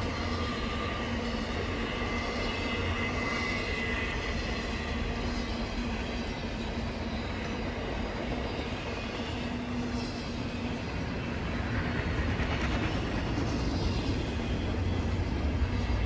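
Freight train passing at track speed: a steady rumble and rattle of wheels on rail, growing a little louder over the last few seconds.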